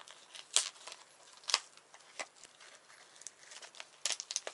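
Stiff plastic toy packaging crackling as it is handled: single sharp crinkles about a second apart, then a quick run of them near the end.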